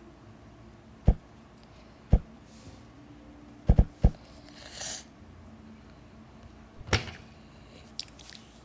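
Sharp knocks of hard objects being set down or bumped indoors, about seven in all: single knocks spread through, three in quick succession about four seconds in, and a short rustle just after them.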